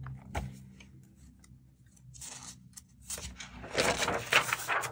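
Paper rustling as notebook pages are handled, with a light knock about half a second in; the rustling is loudest near the end.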